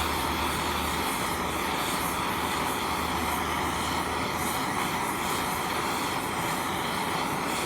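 Soldering torch flame burning with a steady hiss, heating a copper pipe fitting while solder is fed into the joint.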